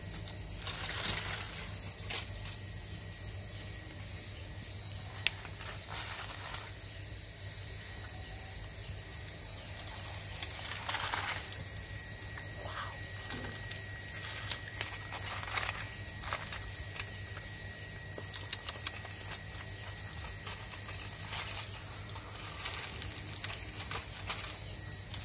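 Steady high-pitched insect buzzing, with short scattered crinkles and crackles of aluminium foil being peeled open by hand.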